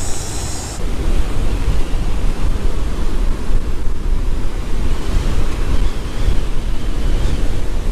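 Storm-driven surf breaking on a Gulf beach under strong gusting wind, which buffets the windscreened microphone with a heavy low rumble in a continuous loud rush. A high hiss cuts off abruptly under a second in.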